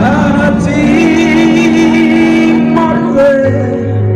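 A man singing live into a microphone through a PA, his wavering melody line over a band's sustained keyboard chords, with a low bass note coming in near the end.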